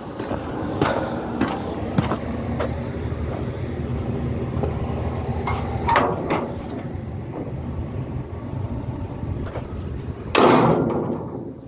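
Steady low hum of machinery running, with a few light taps and knocks on the excavator's steel body panels. A short, loud rush of noise comes about ten seconds in.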